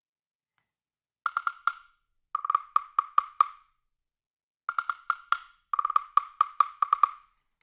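Sampled jam block and wood block from Toontrack's Stories SDX percussion library playing a sparse combined pattern. It starts about a second in and comes as four short clusters of rapid, sharp, same-pitched knocks with gaps between them.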